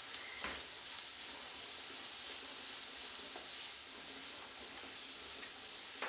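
Faint, steady sizzle of chopped beetroot, onion and green chilli frying in oil in a pan, stirred with a wooden spatula.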